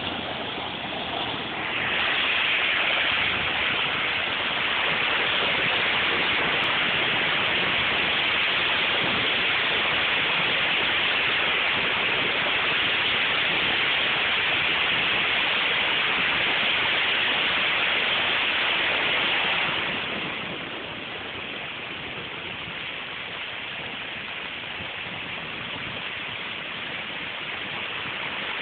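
River in flood, muddy water rushing fast and high under a bridge: a loud, steady rush of water that swells about two seconds in and drops back to a lower level about twenty seconds in.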